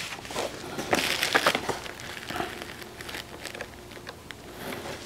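Paper rustling and crinkling as a thin paperback cookbook is handled and its pages are turned. The rustles come thickest in the first second and a half, then fainter, scattered ones follow.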